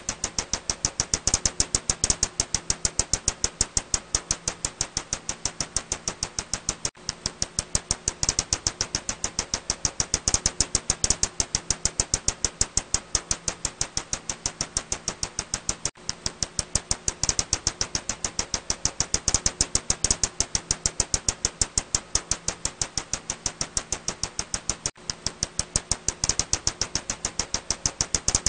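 Ussuri bat (Myotis petax) echolocation calls made audible as a rapid, even run of clicks, about nine a second, over a faint low hum. The run breaks off briefly about every nine seconds.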